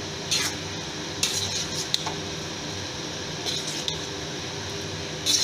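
A spatula stirring a thick curry of boiled beans and potato chunks in a metal pan, with a few irregular scrapes and clinks against the pan.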